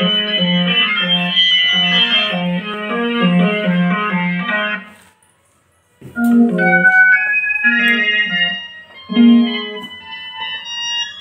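Roland electronic keyboard played through a tower speaker: chords over a repeating bass pattern, which stops for about a second midway while its panel buttons are pressed, then resumes with chords and higher melody notes.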